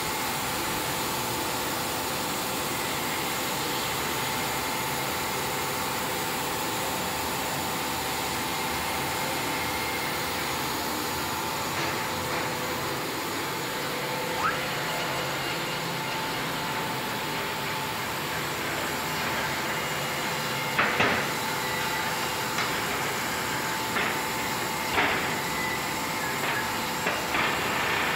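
Wood-Mizer WM3500 industrial band sawmill running, a steady machine hum with a few fixed whining tones. In the last third, several sharp knocks and clanks.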